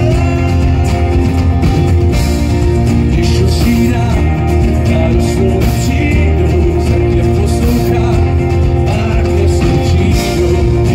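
Live band music with guitar, loud and steady throughout.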